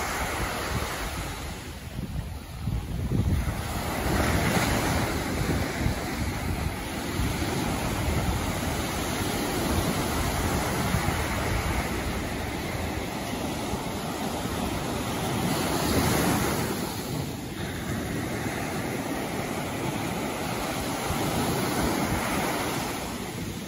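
Sea waves washing in and drawing back, swelling louder every several seconds, with wind buffeting the microphone.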